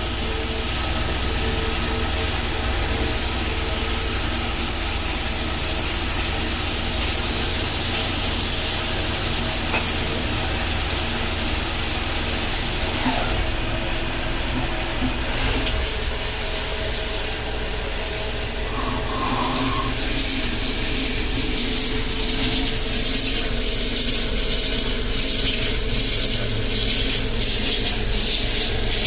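CNC machine cutting an A105 steel socket-weld cap. Coolant hisses and splashes steadily over the machine's running hum.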